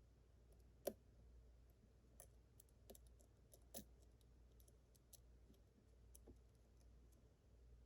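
Faint, scattered clicks and light scrapes of a lock pick working the pin stack of a Yale Superior 1-star lock under tension, one click a little louder about a second in and another near the four-second mark.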